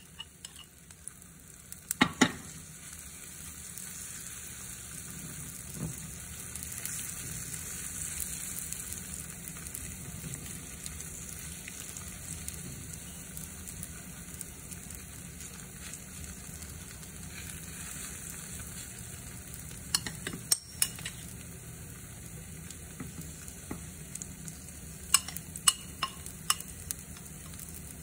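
Thin green-onion crepe batter sizzling in a hot nonstick frying pan, a steady hiss. A metal spoon spreading the batter knocks and scrapes against the pan a few times, about two seconds in, around twenty seconds and near the end.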